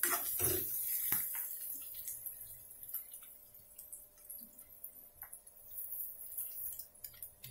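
Onions, chillies and ginger-garlic paste frying in oil in a kadai: faint, scattered crackles and pops of the hot oil, with a few sharper clicks in the first second or so.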